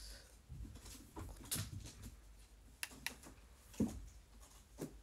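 Close handling noises: scattered light clicks and taps with soft rustling, the sharpest knock a little before four seconds in.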